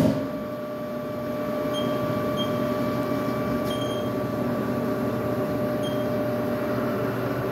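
Haas DS-30Y CNC lathe running with a steady mechanical hum as its tool turret is moved, with a few faint, short high-pitched blips.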